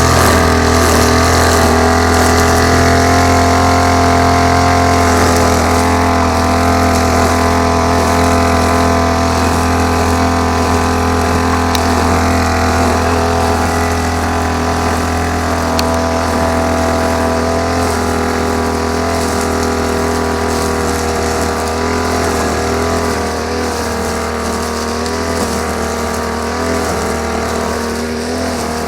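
Small petrol engine of a grass-cutting machine running steadily at working speed, its pitch wavering slightly as it cuts, and growing a little quieter toward the end.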